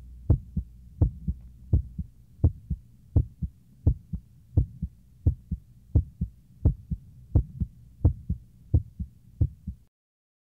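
Heartbeat sound effect: steady pairs of low lub-dub thumps, about 85 beats a minute, stopping just before the end.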